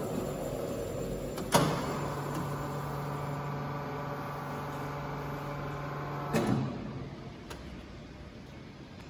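Amada HA250 band saw's head-lift drive: a clunk about a second and a half in, a steady low hum for about five seconds while the saw bow rises, then another clunk as it stops.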